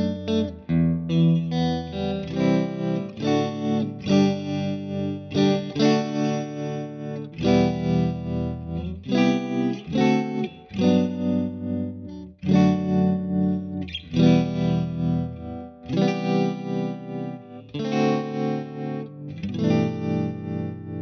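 Electric guitar, a Fender Stratocaster played through the Fattoria Mendoza Tremo tremolo pedal into a Mesa Boogie Lonestar amp. It plays a slow chord progression, a new chord every second or two, with the volume pulsing quickly from the tremolo.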